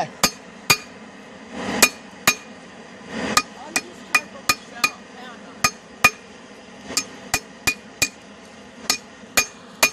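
Hammer blows on a makeshift anvil at a forge, about two a second at an uneven pace, each strike ringing briefly and metallically. Two short rushing noises come between the strikes early on.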